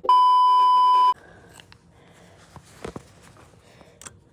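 An edited-in censor bleep: a steady 1 kHz beep lasting about a second that starts and stops abruptly. A few faint small clicks follow near the end.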